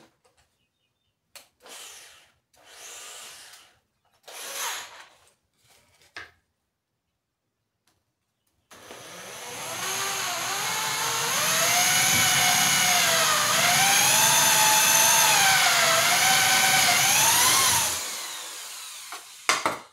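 A few short scraping sounds. Then a benchtop drill press starts about nine seconds in, boring through a thin wooden board with a Forstner bit: the motor whines up to speed, its pitch sagging and recovering as the bit is fed into the wood, and it stops near the end.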